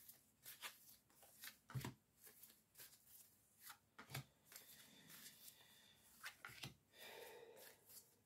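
Oracle cards being handled and spread out: a run of quiet, short card flicks and taps, with a longer sliding rustle near the end.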